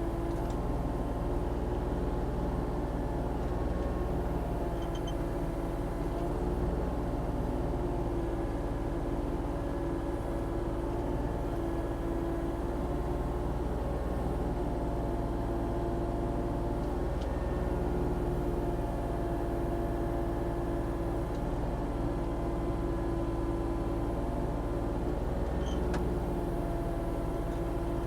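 Volvo ECR40D compact excavator's diesel engine running steadily at working revs while digging, with a few faint clicks.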